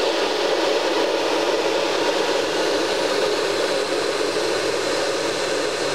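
Pedestal fan running with a steady, even whirring noise that does not change.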